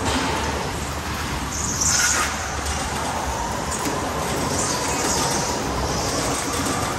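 Electric go-kart driven at speed through corners, heard on board: a faint motor whine that rises and falls in pitch over the rolling and wind noise, with high-pitched tyre squeal on the smooth track about two seconds in and again a little past the middle.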